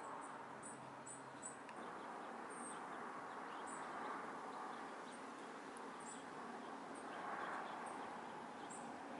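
Faint garden ambience: short, very high chirps, often in pairs, about once a second over a steady hiss.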